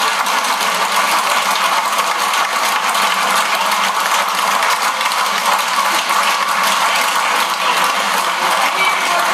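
Concert audience applauding steadily, a dense clatter of many hands clapping.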